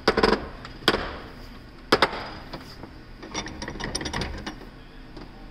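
Sharp metal knocks from a Dana 30 axle shaft and U-joint being worked in a steel bench vise. There is a quick cluster of knocks, then single knocks about a second apart, the last ringing briefly, followed by a run of light metallic clicks and rattles.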